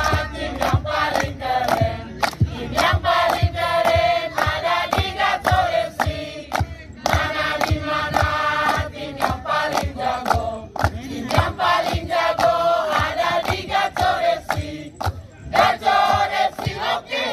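A group of young people singing a song together in unison, over a steady beat of sharp hand claps about two to three a second.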